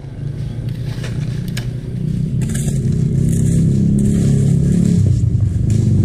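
A small engine running steadily with a low hum, growing louder over the first two or three seconds and then holding level.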